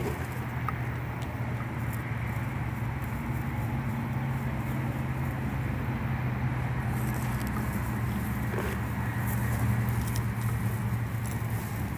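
A steady low motor hum with an even pitch, with faint scattered rustles and ticks from dry grass.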